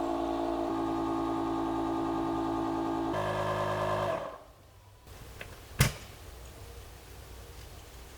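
A motor running steadily, shifting pitch twice, then switched off about four seconds in, followed by a single sharp click.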